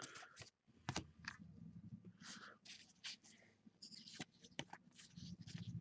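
Faint, scattered clicks and soft rustles of baseball trading cards being handled and slid one past another.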